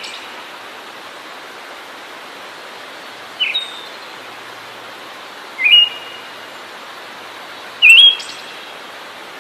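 A songbird giving short, sharp calls, three in all, roughly two seconds apart, over a steady background hiss.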